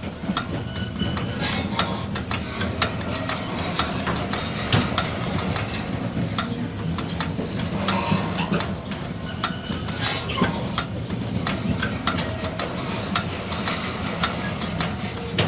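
New Holland Super Hayliner 69 baler's gear drive being turned over after fresh gear oil: irregular metallic clicking and clinking over a steady low hum.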